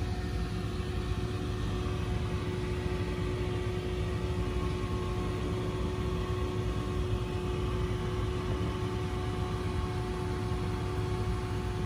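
Steady hum of a running machine: a low rumble under a constant mid-pitched tone.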